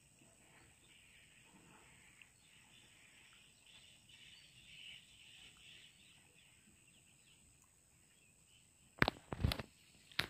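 Faint outdoor ambience with high chirping, then three loud sharp knocks near the end.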